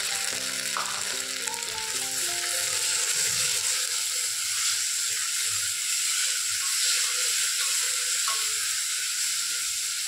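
Moong dal and sliced onions sizzling in hot ghee and oil in a steel pressure cooker, a steady hiss, while a wooden spatula stirs and scrapes them around the pot. Soft background music plays underneath.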